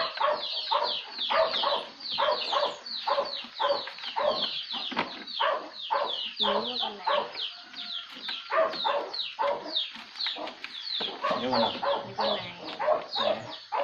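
Chickens calling: many short, high, falling peeps in quick succession, with a few lower clucks about six and a half seconds in and again near the end.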